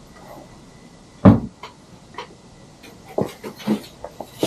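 A single sharp thump about a second in, followed near the end by a few light clicks and knocks, as of things being handled and set down.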